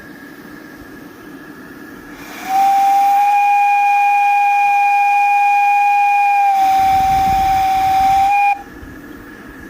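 Live-steam 5-inch gauge locomotive's steam whistle sounding one long blast of about six seconds, starting about two seconds in. Its pitch is steady and sags slightly in the last couple of seconds, over a steady steam hiss.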